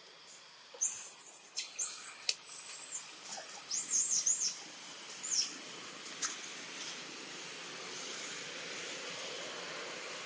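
A run of very high-pitched, arching chirping calls starting suddenly about a second in and recurring in clusters, over a steady high-pitched hiss that starts at the same moment and carries on.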